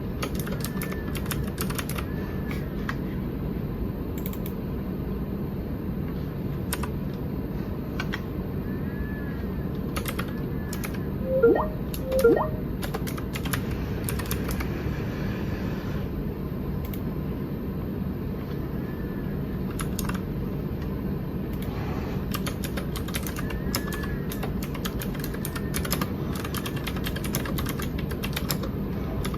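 Keys being pressed on a Keychron K6 mechanical keyboard with Gateron Blue clicky switches: scattered, irregular key clicks over a steady low background hum. Near the middle, two short rising chirps about a second apart are the loudest sounds.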